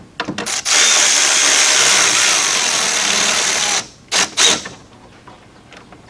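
Cordless power driver spinning out the bolts of the radiator's top retaining brackets: a few short bursts, one run of about three seconds, then two brief blips about four seconds in.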